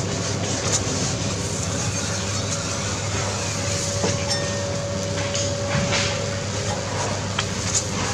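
Street-stall background noise: a steady low rumble and hiss, like passing traffic, with scattered light clicks and a faint steady tone for a couple of seconds in the middle.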